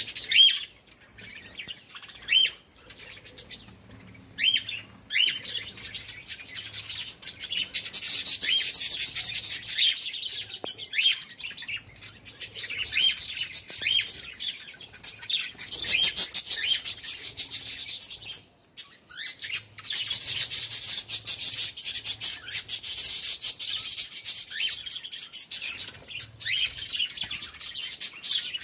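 A flock of budgerigars chattering. Separate sharp chirps come in the first few seconds, then the flock breaks into a dense, continuous twittering warble that pauses briefly about two-thirds of the way through and starts again.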